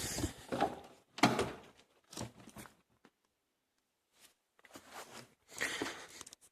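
A few short knocks and rustles, about a second apart, of a Mercedes W124's door being opened and someone moving into the car.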